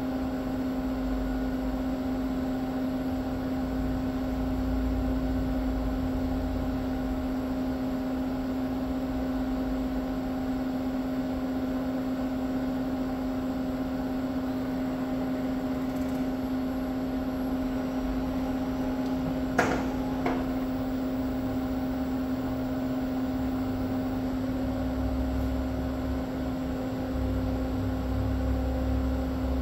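Yaskawa Motoman EA1900N dual-arm welding robots on a test run, moving without welding. There is a steady electric machine hum with a low rumble that rises and falls, and two sharp clicks about half a second apart about two-thirds of the way through.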